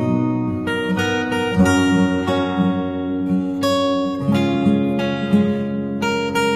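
Background music: acoustic guitar picking and strumming, with the chords changing every second or so.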